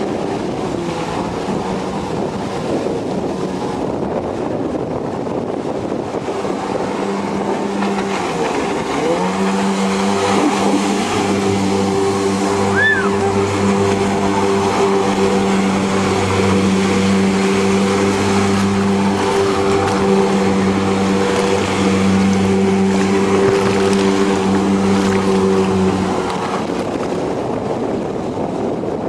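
Jet ski engine running at speed, a steady drone over a noisy hiss. The drone grows stronger about a third of the way in and eases off near the end.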